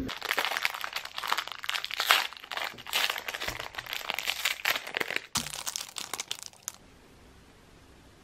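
Plastic bag crinkling and rustling in quick bursts as it is pulled off a frozen pound cake, stopping about seven seconds in.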